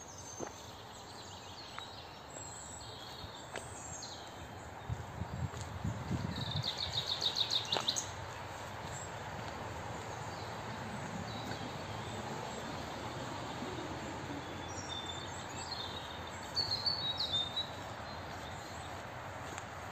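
Songbirds singing over a steady outdoor hiss: a fast, rapidly pulsed trill about six seconds in, and another short high phrase near the end.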